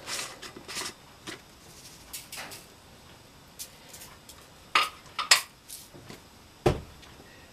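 Scattered clicks and light knocks of kitchen utensils against a foil-lined metal baking pan while ribs are seasoned and brushed. The two loudest clicks come about five seconds in, and there is a dull thump near the end.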